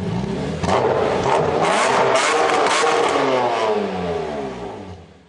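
Car engine revving as an intro sound effect: it runs steadily, revs up sharply about a second in, then its pitch falls away and the sound fades out.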